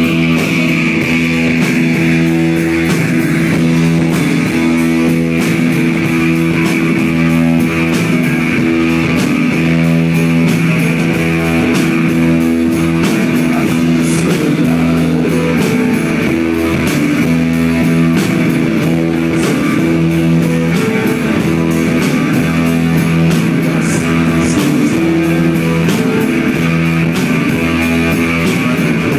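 Live psychedelic rock band playing a steady, droning groove: electric guitar, bass guitar, keyboard and drum kit, with held low notes over an even drumbeat.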